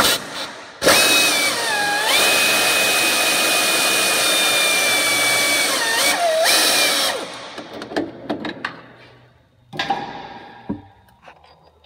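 Pneumatic air ratchet on a 17 mm deep socket and wobble extension running out the starter's lower mounting bolt: a loud hissing whine that sags in pitch about a second in, runs steady for about four seconds, dips again and stops about seven seconds in. Then a few light clicks and a knock of the socket and tools.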